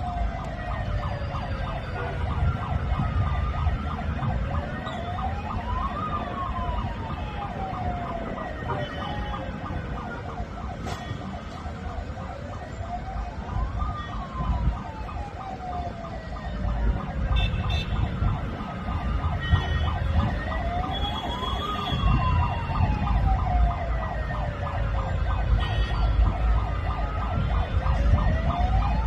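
Car-mounted sirens wailing, their pitch slowly rising and falling about every eight seconds, two wails overlapping out of step, over a steady low rumble.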